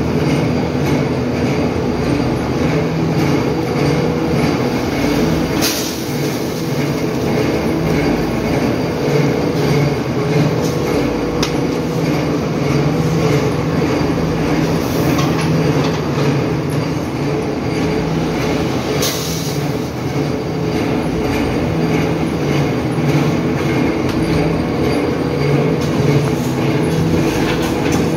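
PVC pipe factory machinery running with a loud, steady hum and a few held tones, broken by brief sharp clatters about six seconds in and again about nineteen seconds in.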